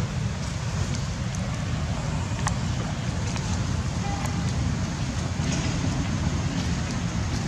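Steady low outdoor rumble, with a few faint clicks over it.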